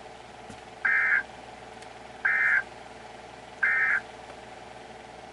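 Emergency Alert System end-of-message signal: three identical short bursts of warbling SAME data tones, each about a third of a second long and about 1.4 s apart, marking the end of the alert. A steady low hum runs underneath.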